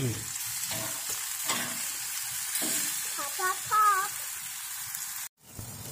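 Jerk chicken drumsticks sizzling on a hot grill grate, a steady hiss. A brief high warbling sound rises over it about three and a half seconds in, and the sound cuts out for a moment just after five seconds.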